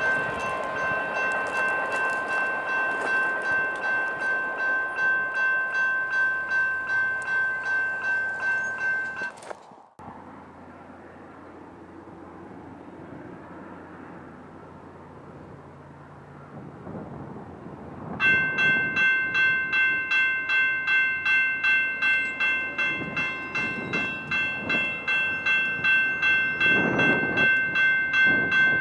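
Railroad grade-crossing bell ringing with rapid, regular strikes. It cuts off abruptly about a third of the way in, leaving quiet outdoor ambience, and another crossing bell starts ringing about two-thirds of the way through as a train approaches.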